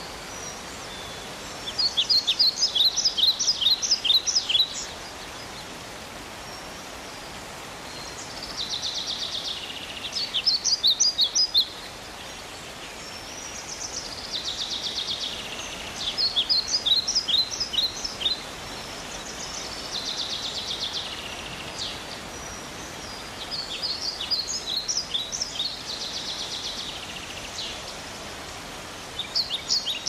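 High-pitched animal calls repeating about every six seconds. Each phrase is a buzzy trill and then a quick run of sharp chirps, over a steady background hiss.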